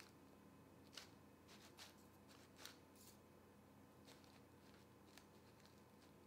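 Near silence with a handful of faint, brief rustles and ticks, the clearest about a second in, from hands squeezing a plastic piping bag of icing.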